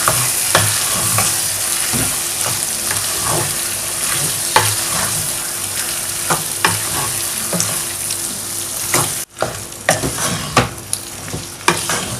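A spoon stirring fried plantain and chicken gizzard through a pepper sauce sizzling in a pot, clacking against the pot again and again over a steady sizzle. The sound drops out abruptly for a moment about nine seconds in, then the stirring and sizzle carry on.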